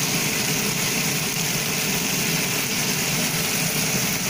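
Small whole croakers pan-frying in oil in a frying pan on a gas stove, a steady sizzle with a low hum under it.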